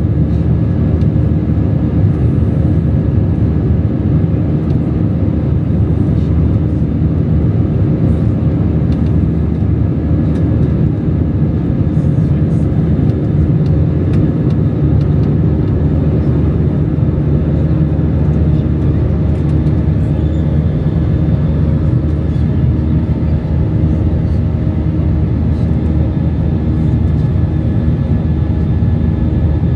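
Steady low cabin drone of an Airbus A319-100 in flight: jet engine and airflow noise, even and unbroken, with a few faint steady tones over it.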